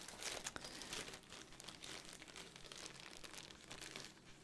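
Clear zip-lock plastic bag crinkling as hands handle and open it: a continuous run of small crackles and rustles.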